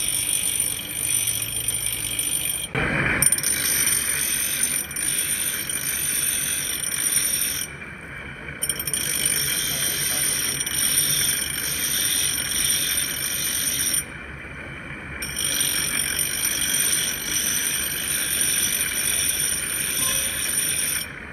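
Grinding wheel of a manual cutter grinder sharpening the teeth of a gear-cutting hob: a steady high-pitched grinding whine with a rasping noise under it. A brief louder burst comes about three seconds in, and the high whine breaks off twice for about a second.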